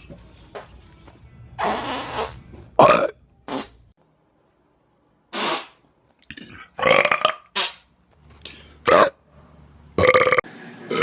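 A string of separate loud belches from men burping on command, one after another, the loudest about three seconds in.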